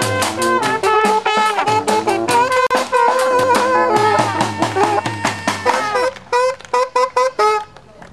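Balkan-style brass band of trumpet, saxophone, brass horn and marching drums playing a fast tune live. About six seconds in, the tune breaks into a string of short staccato hits and stops.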